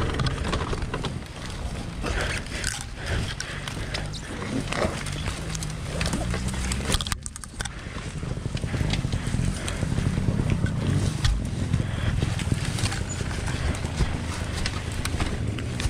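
Two-stroke dirt bike engine running at low revs, with frequent knocks and clatter over rough ground.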